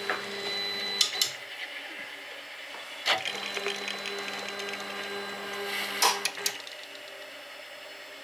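Stepper motors of a small CNC machine driving its axes, making a steady whine that changes pitch as moves start and stop. Sharp clicks come about one, three and six seconds in.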